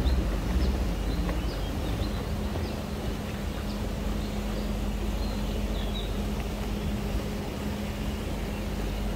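Electric canal boat under way: a steady low rumble with a steady hum that comes in about two seconds in, and birds chirping briefly and repeatedly over it.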